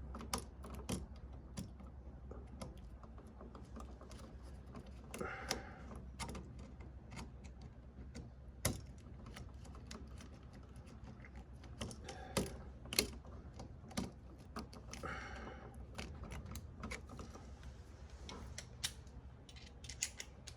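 Scattered, irregular small clicks and taps, with a few louder ones, from hand tools and copper wire working on a wall receptacle's terminal screws.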